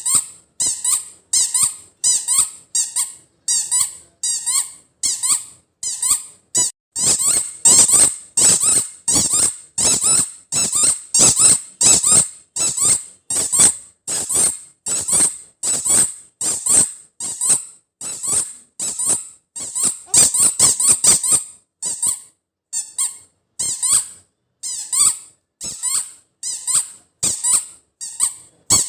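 Squeaker in a soft spiky rubber toy ball squeezed over and over, giving short high 'chuu chuu' squeaks about two a second, coming faster in the middle.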